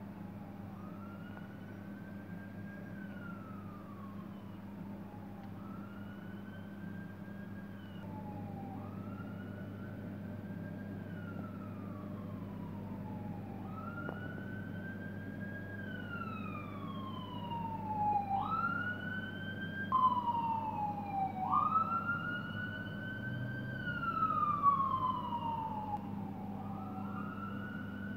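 Emergency vehicle siren wailing in repeated slow rise-and-fall sweeps, about one every three seconds, growing louder in the second half. A steady low hum runs underneath.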